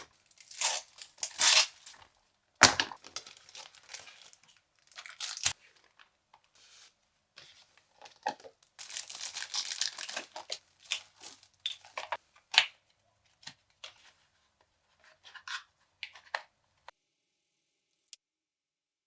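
Toy packaging being torn open and crinkled by hand: irregular bursts of tearing and rustling with scattered sharp clicks and taps, falling quiet for the last couple of seconds.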